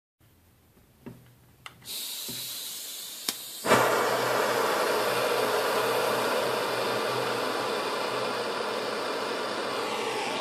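Gas blowtorch being lit: a few clicks and a soft hiss of gas, then the flame catches with a pop a little under four seconds in and burns with a steady, loud hiss.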